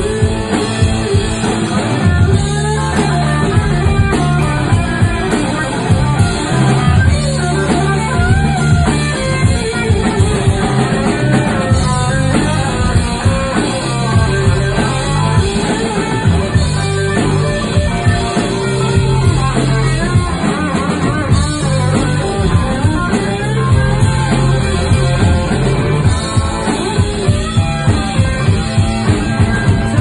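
Three-piece rock band playing live: electric guitar, bass guitar and drum kit, with a steady driving beat.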